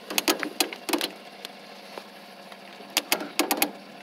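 Sharp clicks and knocks in irregular clusters, about a second in and again near the end, from the controls of a riding lawn mower being worked while trying to start it. The engine does not run: something engaged is keeping it from starting.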